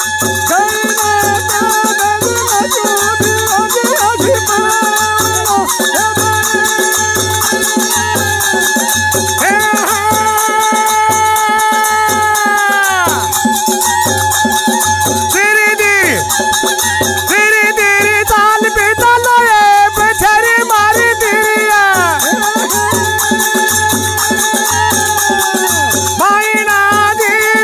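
Rajasthani folk music: algoza double flutes playing a long-held drone-and-melody line whose phrases end in downward pitch falls, over a steady dholak beat and a constant rattling hand percussion.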